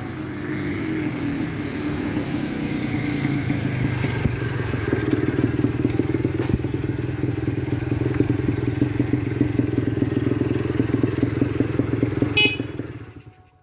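Yamaha DT250's single-cylinder two-stroke engine running, its revs easing down over the first two seconds and then holding steady with a rapid pulsing beat. The sound dies away quickly near the end.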